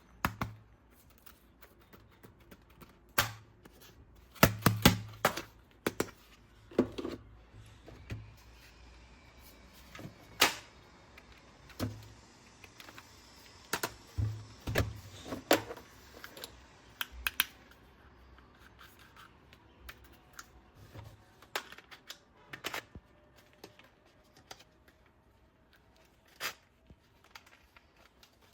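Hard plastic toy parts being handled, giving irregular clicks, taps and knocks, with a busy cluster about four seconds in and sparser clicks in the last third.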